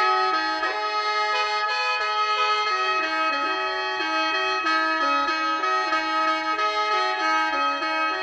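Lao khaen, a bamboo free-reed mouth organ, playing a melody that steps up and down beneath steady drone notes.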